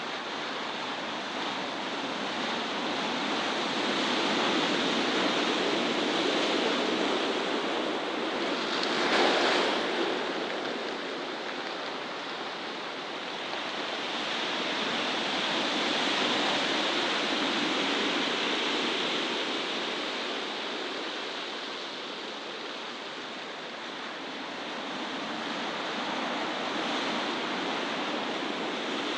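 Steady rushing outdoor noise that slowly swells and fades, loudest briefly about nine seconds in.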